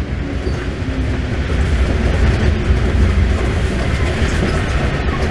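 Paris underground train running at speed through a station: a steady, loud low rumble of wheels on rails and running gear.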